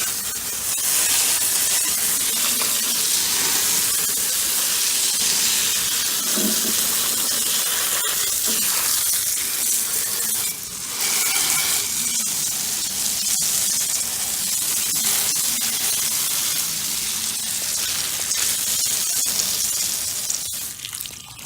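Water spraying from a hose onto an outdoor air-conditioner condenser coil, a steady hiss, rinsing dirt and debris off the coil. The spray stops near the end.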